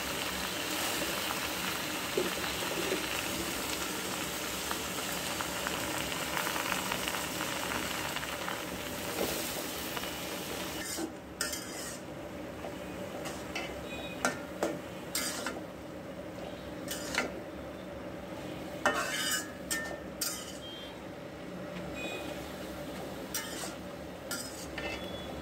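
Red amaranth leaves sizzling as they fry in a metal karahi, a steady hiss. From about eleven seconds in the sizzle is quieter, and a metal spatula stirs and scrapes the wilting leaves with repeated sharp clinks against the pan.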